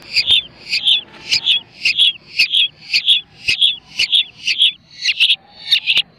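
Long-tailed shrike (cendet) calling in a rapid run of short, harsh notes, about three a second, without a break.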